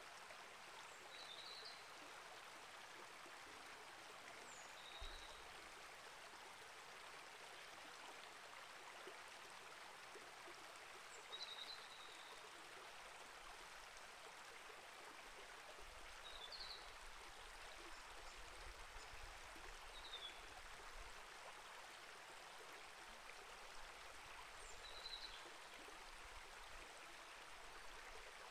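Small rainforest creek flowing softly and steadily, with short high bird chirps every few seconds.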